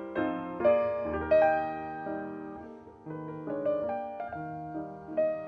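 Solo piano music: a flowing line of notes over chords, each note struck and then fading.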